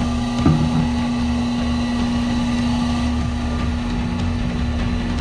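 Steady drone of an electric motor in kimchi-making machinery, one constant hum over a low rumble, with a single short knock about half a second in.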